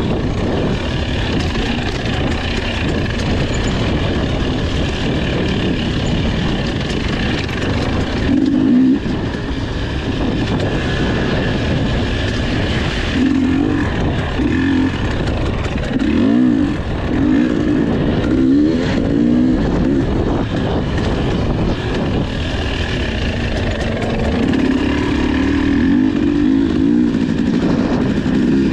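Enduro motorcycle engine running hard, its pitch repeatedly rising and falling with the throttle.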